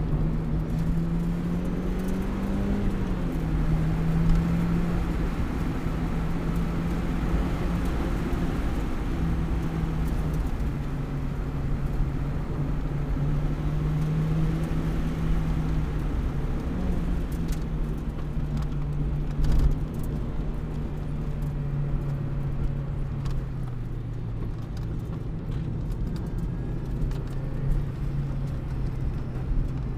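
Car engine and road noise heard from inside the cabin while driving down a winding road, the engine note wavering up and down and settling lower about three quarters of the way through.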